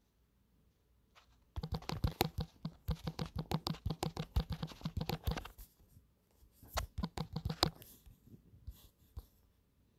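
Fingertip taps on a smartphone's touchscreen keyboard while typing a search: a quick run of taps for about four seconds from a second and a half in, then a shorter run near seven seconds.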